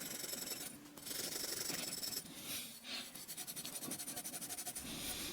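Copper pipe joint being scrubbed clean by hand: a faint, rapid scratchy rasping of abrasive against copper.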